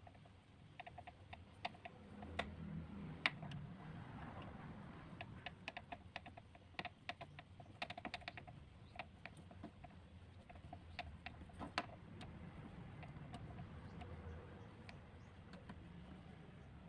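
Faint, irregular clicks and light taps of hand tools and metal parts while fuel-hose clamps are fitted, with a low hum underneath.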